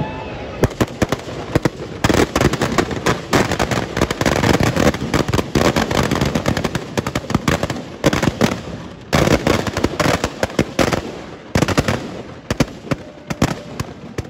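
Firecrackers packed inside a burning Dussehra effigy going off in a dense, rapid string of cracks and bangs that starts about half a second in, pauses briefly a couple of times and thins out near the end.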